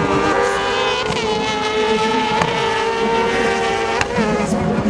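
Motorcycle-engined kart cross buggies running at high revs, several engines overlapping with a steady high note that rises and falls as they accelerate out of a turn. Two sharp cracks come about a second and a half apart.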